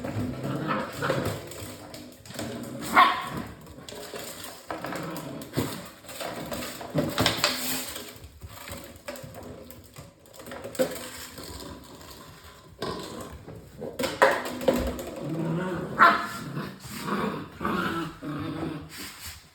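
Six-week-old English Springer Spaniel puppies yipping, whimpering and barking in short, irregular bursts, with the sharpest yelps about 3, 7 and 16 seconds in.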